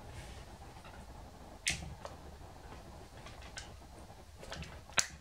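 Sharp plastic clicks and small taps from handling a power drill's trigger switch and its wiring: two louder clicks, about a second and a half in and near the end, with fainter ticks between them.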